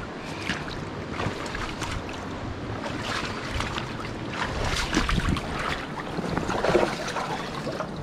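River water rushing, with irregular splashes and wind buffeting the microphone.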